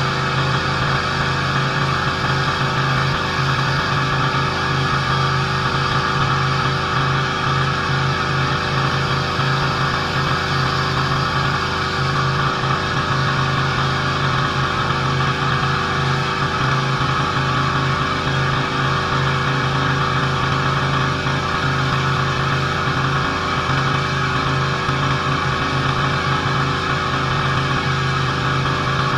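Pressure washer's engine running steadily under load, with the even hiss of the high-pressure water jet on concrete.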